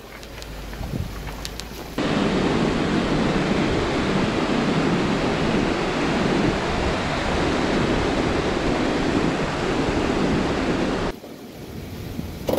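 Wind buffeting the microphone of a camera on a Jeep: a loud, steady rush that starts suddenly about two seconds in and stops abruptly near the end. Before it there is a quieter stretch with a few light clicks.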